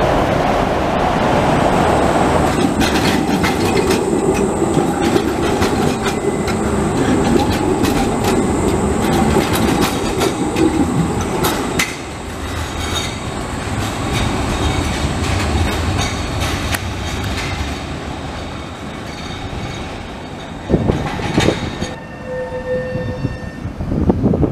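Prague trams running past close by on street track through an arched passage: an older Tatra T3 rumbling toward and past with clicking over the rails, then after a cut a low-floor Škoda 15T tram going by with a deeper rumble. Near the end come a few sharp knocks and a brief ringing tone.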